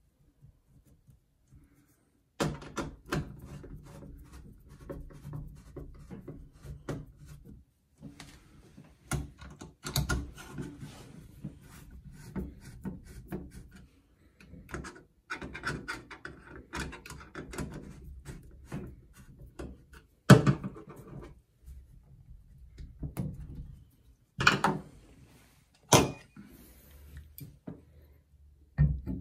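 Clicks, knocks and rubbing from hands handling the trim parts of a Delta single-handle shower faucet as it is fitted and screwed back on, with a few sharper knocks in the last third.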